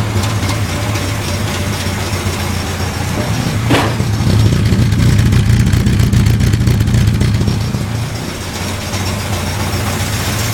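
MG engine newly fitted with a Weber carburettor in place of its SU carbs, running steadily just after a cold start with no choke. It gets a little louder for about four seconds from around four seconds in, with a short sharp sound just before.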